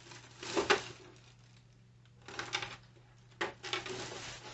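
Handling noises from a sewing machine cover being unpacked and turned over: three spells of rustling and clatter, the loudest about a second in, with a sharp click about three and a half seconds in.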